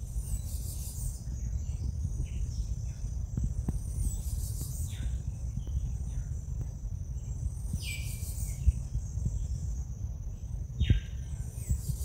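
Tropical forest ambience: insects keep up a steady high-pitched drone while birds give short downward-sliding whistled calls several times, over a continuous low rumble.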